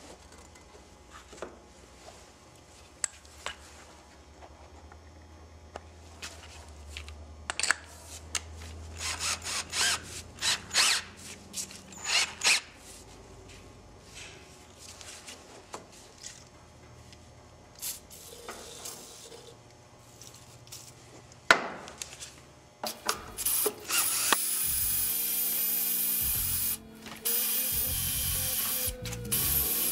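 Cordless drill run in several short bursts, spinning a tool in a transmission servo bore, among scrapes and clicks of handling. About three-quarters of the way in, a steady louder sound with music comes up.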